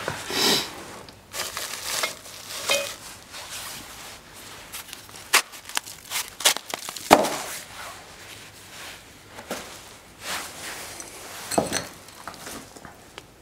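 Irregular crunching, rustling and knocks of rubble and junk being handled and trodden on, with the loudest knock about seven seconds in.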